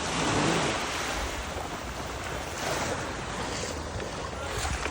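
Steady rushing noise of water and wind buffeting the microphone.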